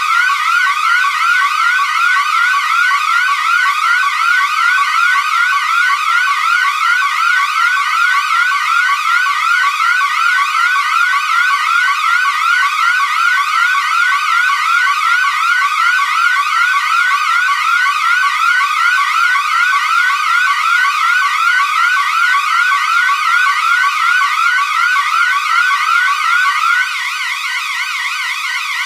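Electronic alarm sounder sounding a rapidly repeating rising sweep tone, a few sweeps a second. Near the end the sweeping stops and a slightly quieter steady tone carries on.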